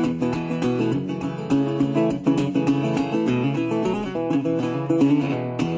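Background music played on acoustic guitar, with plucked and strummed notes in a steady rhythm.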